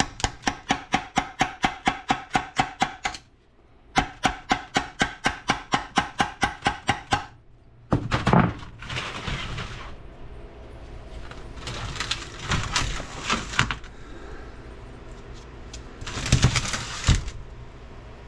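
Hammer rapidly striking a brass punch to drive out the idler shaft of an NP205 transfer case: two runs of quick, even, ringing metallic blows, about five a second, with a short pause between. After them come irregular clunks and clatter of metal parts being handled.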